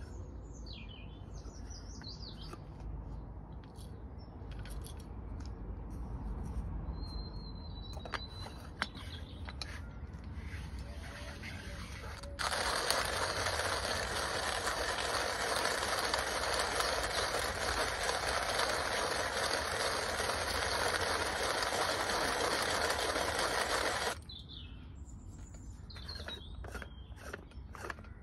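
Hand coffee grinder being cranked, grinding beans with a steady, even rasp that starts sharply about twelve seconds in and stops about twelve seconds later. Small birds chirp before and after.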